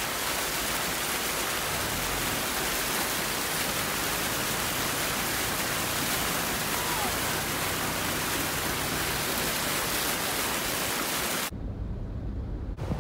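Floodwater rushing across a submerged road: a loud, steady, even rush of water. About a second before the end it cuts off abruptly to a quieter, lower rumble.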